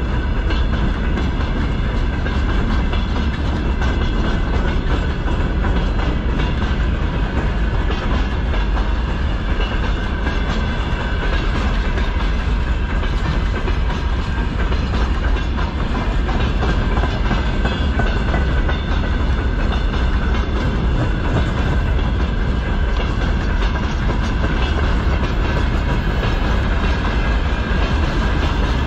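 Freight train of open gondola wagons rolling past close by: steady rumble with the clickety-clack of steel wheels over rail joints and a faint steady ringing tone above it.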